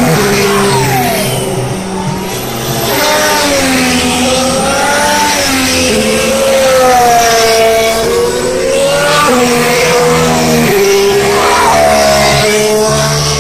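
Several 2014 Formula One cars, each with a 1.6-litre turbocharged V6 engine, passing at speed one after another. Their engine notes overlap, and the pitch rises and falls as each car goes by.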